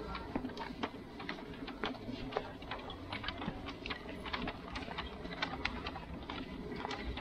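Footsteps on a hard path: many short, irregular steps and clicks over a steady background hubbub.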